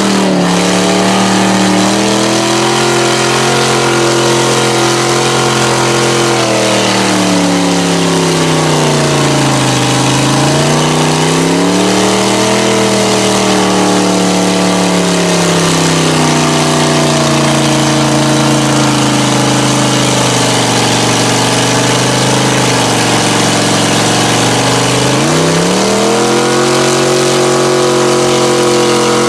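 Mega mud truck's engine running at high revs, its pitch sagging and climbing again a few times, while its huge tires spin and throw mud with the truck bogged down in a deep mud pit.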